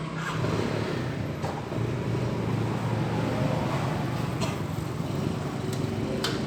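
A motor running steadily with a low hum, getting louder just after the start, with a few sharp clicks near the end.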